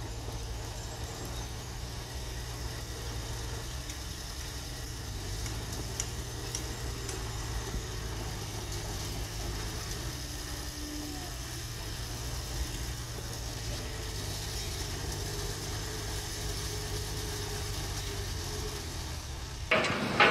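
Komatsu crawler bulldozer's diesel engine running at a steady low rumble as the dozer pushes a pile of soil. Near the end the sound cuts abruptly to a louder rushing noise.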